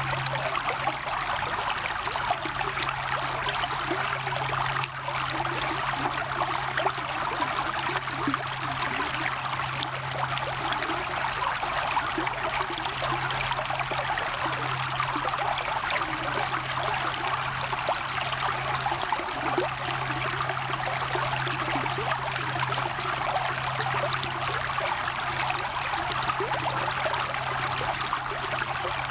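Shallow, partly frozen stream running over stones, a steady babbling and trickling of water. A steady low hum runs underneath.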